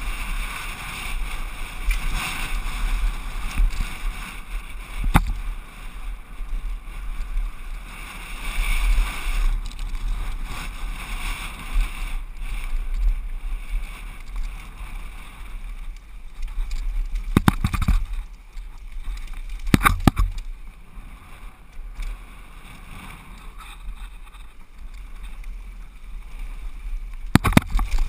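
Downhill mountain bike ridden fast on a dirt trail: a steady rush of wind on the microphone and tyre noise, with several sharp clattering knocks from the bike over bumps in the second half.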